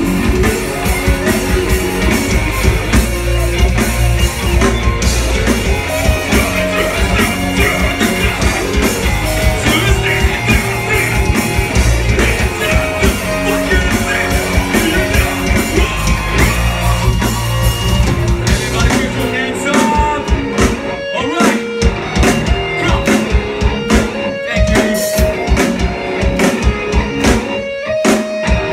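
Live metalcore band playing loud through the club PA: distorted electric guitars, bass and drums. From about twenty seconds in, the band switches to stop-start hits with short gaps between them.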